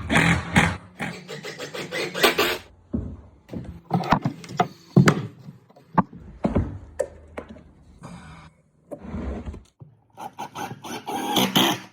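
Floor boards being handled and laid: a string of irregular wooden knocks and clicks mixed with rubbing and scraping, quieter for a moment in the middle.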